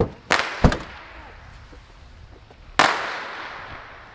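Fireworks going off: three sharp bangs in quick succession in the first second, then a louder bang about three seconds in whose sound echoes and fades slowly.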